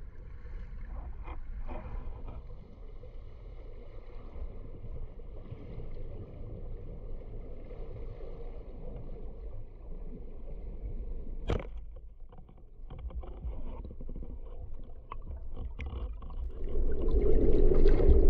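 Underwater recording through an action camera: steady low rumble of surf and moving water. About two-thirds of the way through comes a single sharp crack, the speargun firing at a fish. Near the end the water noise grows much louder and churning as the diver surfaces amid bubbles and breaking waves.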